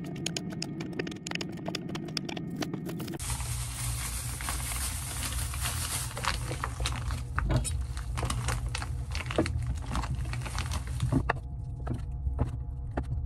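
Kitchen knife chopping vegetables on a wooden cutting board: runs of quick taps, with plastic bag crinkling partway through, over a steady low hum.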